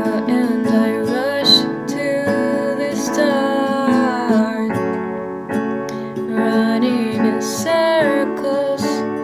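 Music led by acoustic guitar, steady and continuous.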